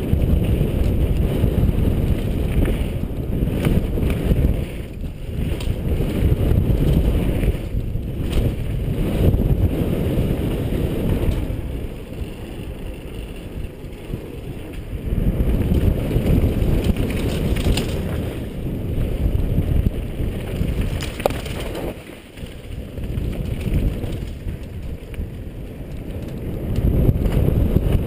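Wind buffeting the helmet camera's microphone over the rumble and rattle of a mountain bike's tyres on dirt and paver trail at downhill speed. The noise eases for a few seconds around the middle and dips briefly near the end.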